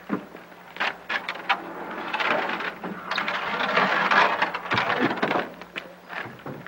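Men working a long wooden plank as a lever under a wagon: a few sharp wooden knocks, then a rough scraping noise lasting a few seconds, loudest about four seconds in, and more knocks near the end.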